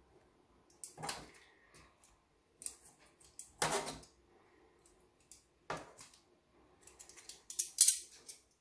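Metal tongs clinking and scraping against a plate as pieces of food are moved on it: scattered short clinks, with a quicker run of clicks near the end.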